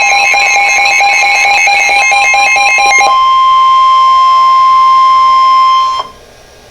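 Electronic emergency alert tones: a rapidly alternating, pulsing multi-pitch alert, then about three seconds in a single steady high tone, the NOAA Weather Radio 1050 Hz warning alarm tone that comes before a warning message. The tone cuts off about six seconds in, leaving faint hiss.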